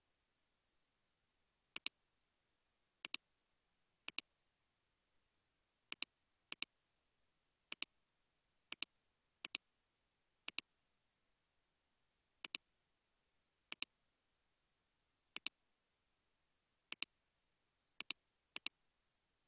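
Computer mouse clicking about fifteen times at uneven intervals, each click a quick double tick, over an otherwise silent background.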